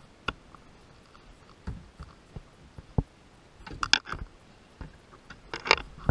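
Scattered light knocks and clicks of fishing gear being handled in a kayak, with two quick flurries of clicks about four and five and a half seconds in.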